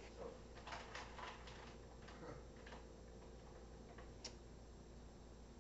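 Faint, irregular light clicks and taps, several in quick succession over the first few seconds and one sharper click about four seconds in.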